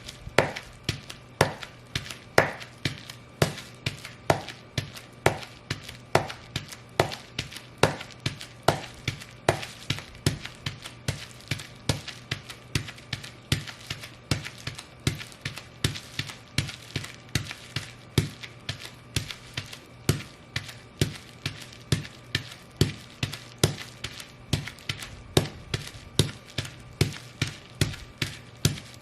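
Fur-covered Ugg boots stomping on bubble wrap, crushing and popping it in a steady rhythm of about two sharp stomps a second.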